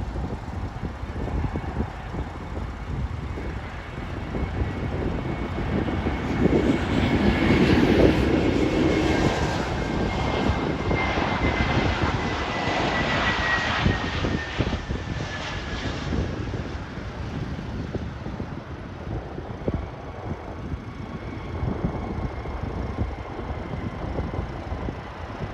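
Airbus A320neo jet airliner coming in to land and passing by: the engine noise swells to its loudest about eight seconds in, with a high whine that slowly falls in pitch as the jet goes past, then dies back to a steady rumble.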